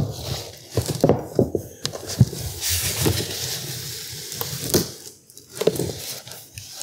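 Handling noise from unpacking stand mixer parts: scattered clicks and light knocks of the attachments being set down and moved, with rustling of packing in the middle.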